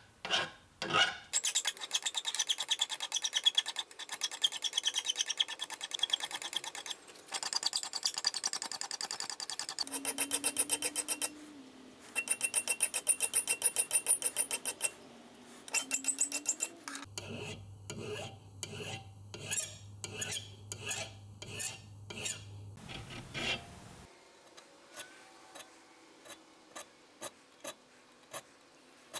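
Hand file rasping back and forth across the end of a metal bar clamped in a vise, cutting the design into the end of a touchmark stamp. It runs as several bursts of quick, rhythmic strokes, then slower, sparser strokes near the end.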